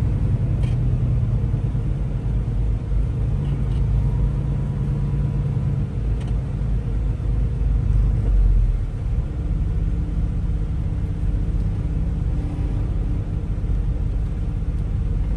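Semi truck's diesel engine running, heard from inside the cab as a steady low drone; its note shifts a couple of times partway through, with a brief louder swell just past the middle.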